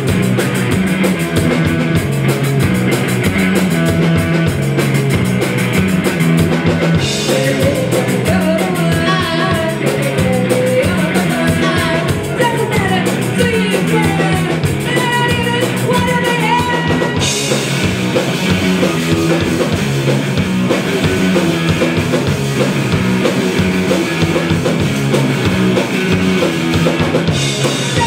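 Live punk rock band playing: distorted electric guitar through a Marshall amp, bass guitar and a full drum kit with a steady beat. A woman sings over it from about 7 seconds in to about 17 seconds, and the cymbals get brighter after that.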